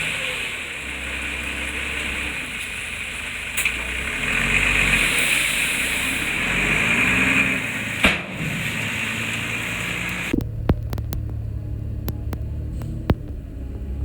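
Diesel engine of heavy earthmoving machinery working, its pitch rising and falling under load, with a few sharp metallic clanks. About ten seconds in the sound changes abruptly to a lower, steadier engine rumble with scattered clicks.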